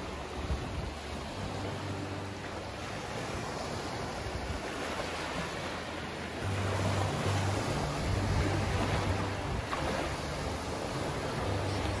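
Black Sea surf washing onto the shore, with wind rumbling on the microphone; the surf gets louder about halfway through.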